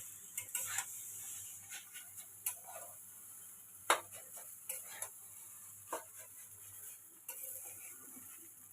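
Irregular light clicks and taps of a metal utensil against cookware or a plate, over a faint steady hiss.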